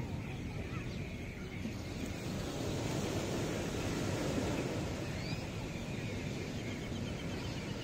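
Surf washing up on the beach, one wave swelling to its loudest about four seconds in.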